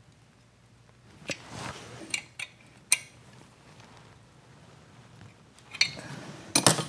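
Metal tools and small engine fittings clinking and knocking against each other while an oil feed pipe is fitted and tightened, in a few scattered sharp clinks with a louder cluster near the end.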